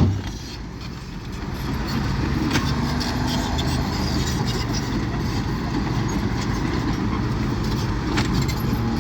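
Komatsu D21P bulldozer's diesel engine running steadily, briefly quieter for a second or so near the start before picking back up. A couple of sharp knocks come through over the engine.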